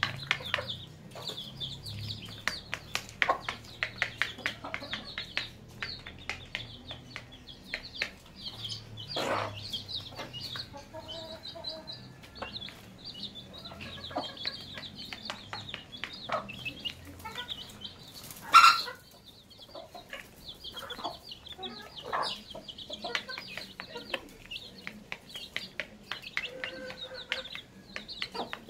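Domestic hen clucking while her chicks peep continuously in quick high chirps, with many sharp clicks of beaks pecking at a plastic plate. About two-thirds of the way through comes one loud, brief burst, the loudest sound.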